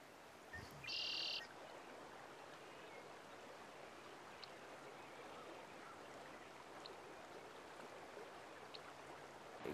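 Steady rush of a river running over rocks, with a brief high-pitched call about a second in and a few faint short chirps later.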